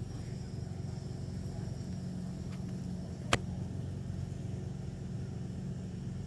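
A steady low hum, with a single sharp click a little past halfway.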